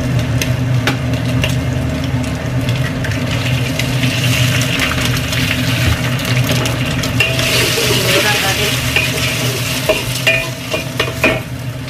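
Hot oil sizzling in a wok as an egg is fried, the sizzle growing louder about four seconds in and again past the middle. Near the end a spatula knocks and scrapes against the wok a few times, over a steady low hum.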